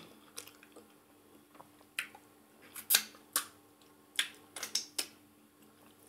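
Mouth sounds of eating fufu with ogbono soup: a run of about seven or eight sharp mouth and lip smacks while chewing, starting about two seconds in.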